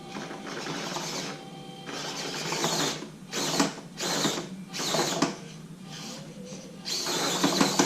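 A 1/24-scale RC crawler's small electric motor and drivetrain gears whirring in repeated short bursts of throttle, then a longer burst near the end. The truck is straining on an incline too steep for it to climb.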